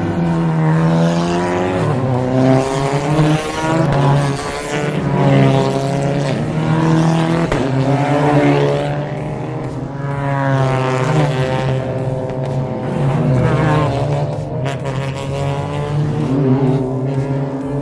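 TCR touring cars, a Cupra León and a Hyundai Veloster N among them, driving slowly past one after another, their turbocharged four-cylinder engines revving, each car's note rising and falling as it goes by.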